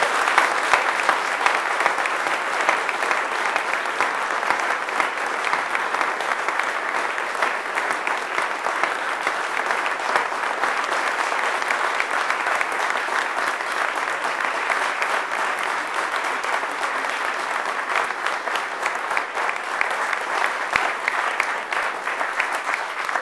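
Sustained applause from an audience in a hall, steady throughout, with many hands clapping at once.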